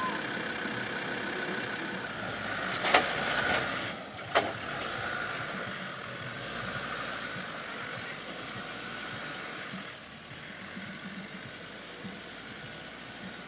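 Four-wheel-drive engine running at low revs as the vehicle crawls through deep ruts. Two sharp knocks come about a second and a half apart, a few seconds in.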